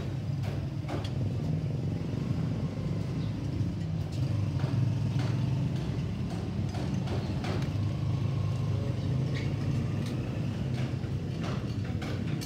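Yamaha Mio i scooter's single-cylinder engine running steadily with its CVT cover off, with a few scattered light clicks.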